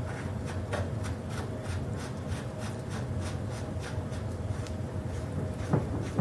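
Small metal parts being turned by hand at the top of a springer fork's steering stem: faint rubbing and light ticking, about three ticks a second, over a steady low hum. A sharper knock comes near the end.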